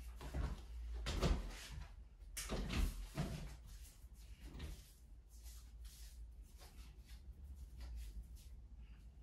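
Soft rustles and knocks of handling as a gloved therapist takes hold of a seated man's hand and moves his arm. They are bunched in the first three seconds, then fainter and more scattered.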